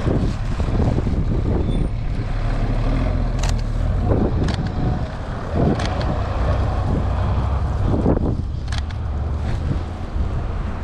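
Blizzard wind buffeting the microphone, a steady low rumble, with a few short sharp clicks scattered through it.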